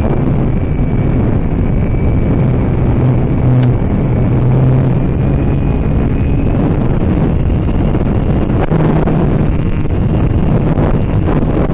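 Wind buffeting the microphone of an RC flying-wing plane in flight, over a steady low hum from its electric motor and propeller that steps up in pitch about nine seconds in. The hum and wind are gusty and uneven.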